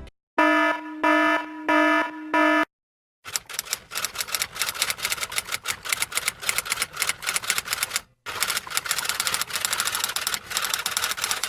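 Four short electronic beeps, then fast, dense typing clicks clattering for several seconds, broken by a brief pause about eight seconds in.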